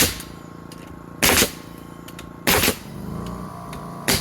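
Nail gun driving four nails into a 2x4 block on a wooden post, one sharp shot about every 1.3 seconds.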